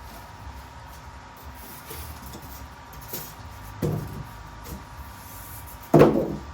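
Metal parts of a paper cutter being handled during disassembly: a few light clicks, a knock about four seconds in and a louder clunk near the end.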